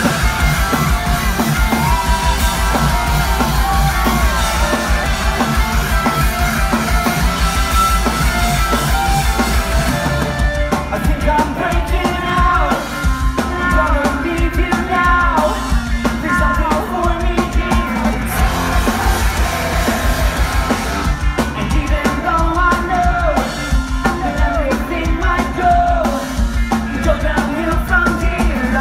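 Pop-punk band playing live at full volume, with a driving drum kit and electric guitars. A male lead vocal comes through most clearly from about ten seconds in. It is heard from within the crowd through a phone's microphone.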